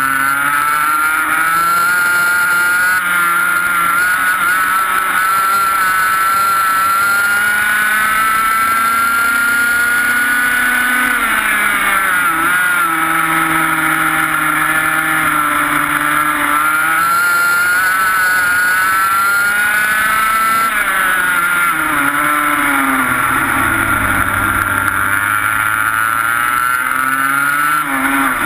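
Two-stroke TaG racing kart engine heard from onboard at race pace, its pitch climbing steadily down the straights and falling sharply twice, about a third of the way in and again about two-thirds through, as the driver lifts for corners, then climbing again.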